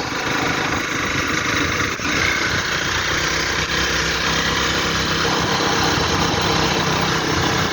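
Honda CRF300 Rally's single-cylinder engine running steadily as the motorcycle is ridden along an off-road mountain track.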